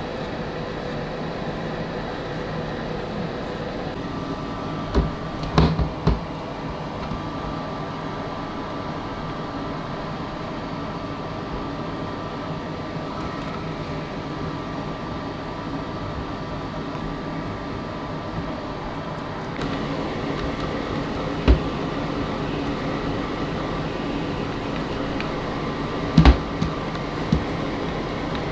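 Iris Ohyama Kararie futon dryer blowing air steadily through its hose nozzle: an even rushing hum with a faint steady whine. A few brief knocks come in, and the blowing gets a little louder about two-thirds through.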